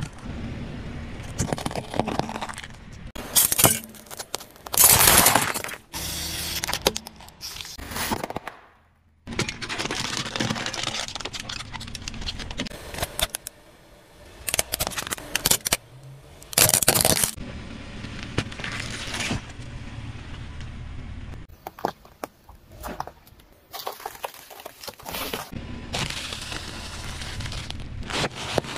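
A car tyre crushing a succession of objects on pavement, close-miked: a series of separate loud cracks and crunches, the loudest about five seconds in.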